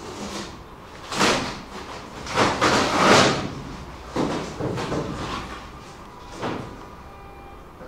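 Packaging being handled: a run of short rustles and knocks, like bubble wrap and cardboard boxes being moved, the loudest about three seconds in and a last one near the end.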